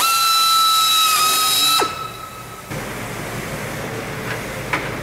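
Pneumatic air drill running at full speed, a steady high whine over a hiss of air, as it drills the aluminium aircraft skin. About two seconds in it is released and winds down, the pitch falling, and the air hiss dies away a moment later.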